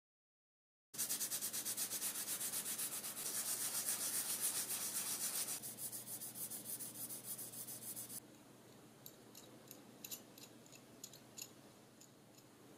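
Sandpaper rubbed back and forth over a small flat model part in quick, even strokes, starting about a second in and stopping about eight seconds in. After that, scattered faint clicks.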